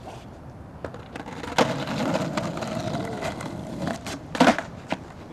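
Skateboard trick attempt: a sharp knock of the board about a second and a half in, the wheels rolling on pavement for about two seconds, then loud clattering knocks of the board near the end as the trick is missed.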